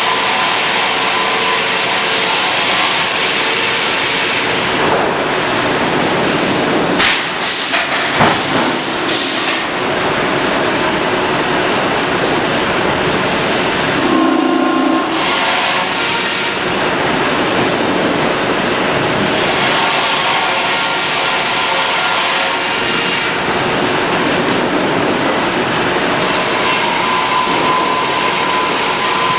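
Sawmill machinery running with a loud, steady rushing noise, broken by a quick cluster of sharp bangs about seven to nine seconds in.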